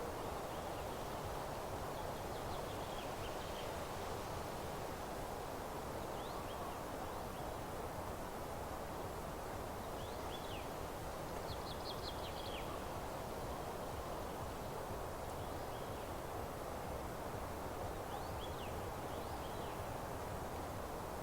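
Steady rustling hush of wind through meadow grass and leaves, with faint high bird chirps and short trills scattered through it. The birds are clearest about two to three, ten to twelve, and eighteen to nineteen seconds in.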